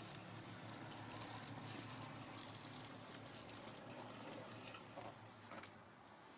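Faint trickling and splashing of liquid fuel being poured from a can over a bonfire pile.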